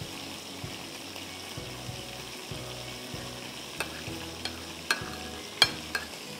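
A metal spoon stirring a marinade in a ceramic plate, with a few sharp clinks against the plate in the second half. Oil sizzles steadily in a pan underneath.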